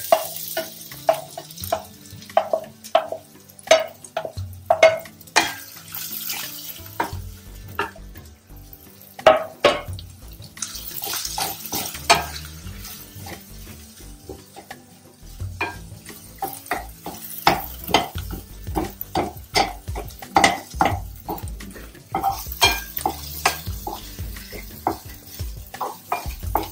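Wooden spatula stirring onions and crushed ginger-garlic frying in a nonstick pan, knocking and scraping against the pan one or two times a second over a light sizzle.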